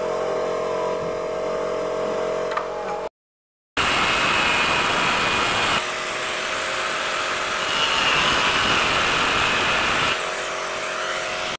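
A steady machine hum for about three seconds, then an electric angle grinder with a cutting disc running through an aluminium door profile: loud, even grinding with a high whine, starting suddenly about four seconds in.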